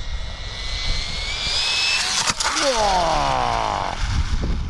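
JJRC Q117 RC car's small 2847-size 4000kv brushless motor on a 3S battery at full throttle, its high whine rising in pitch as it speeds up. A sharp knock comes about two seconds in, then the whine falls away steeply in pitch.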